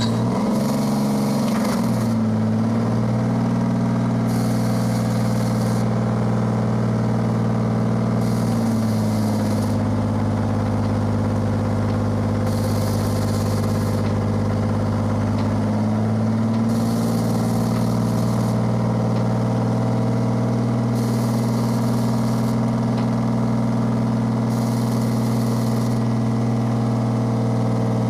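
Truck-mounted crane's diesel engine running steadily. Its note shifts a little three times as the crane works.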